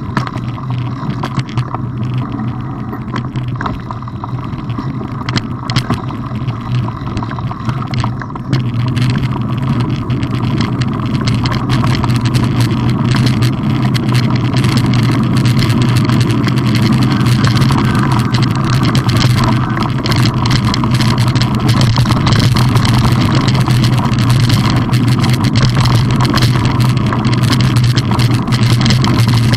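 Steady rumble of wind and knobbly tyres on dirt picked up by a mountain bike's onboard camera as it rolls along a trail, growing louder and rougher about eight seconds in.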